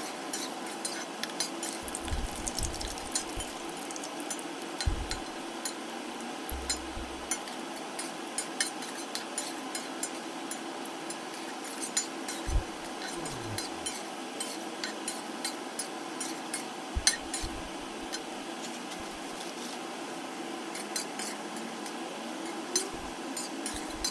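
Banana fritters deep-frying in a steel wok of hot oil: a steady sizzle with frequent small crackles, while a slotted spatula stirs them and knocks and scrapes against the wok now and then.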